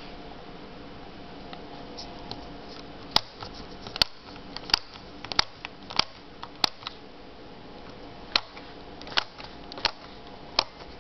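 Front-panel pushbutton switches on a Watkins-Johnson WJ-8716 HF receiver clicking as they are pressed one after another. About ten sharp clicks, most of them between three and seven seconds in, over a steady hiss.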